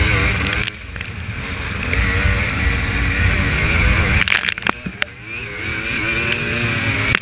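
Off-road motorcycle engine under way, the revs building and falling with the throttle. It drops off once about a second in and again, with a few sharp knocks, at about four seconds, then picks up once more.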